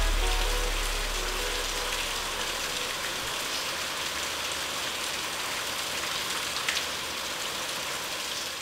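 Steady rain falling, an even hiss, with the last notes of music fading out in the first two seconds.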